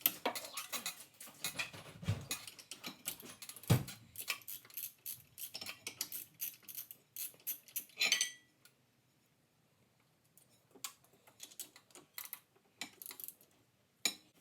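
Metal hand tools and engine parts clinking and tapping during work on a snowmobile engine, with two heavier knocks in the first four seconds. A louder clatter comes about eight seconds in, then only a few scattered clicks.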